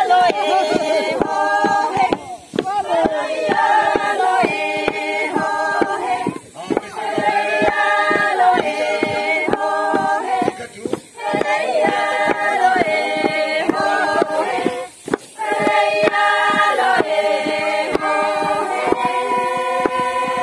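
A group of women singing a Sangtam Naga folk song together, in phrases a few seconds long broken by short pauses, over a steady beat of knocks.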